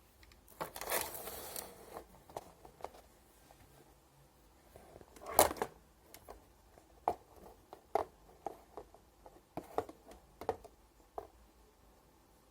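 Close handling noises of a spinning fishing reel: a rustle lasting about a second near the start, a sharp knock about five seconds in, then a run of light scattered clicks.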